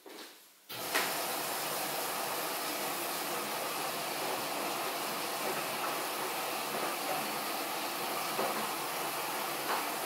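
Haier HW80-B14979 front-loading washing machine taking in water during its wash cycle: the inlet valve opens about a second in and water rushes in with a steady hiss.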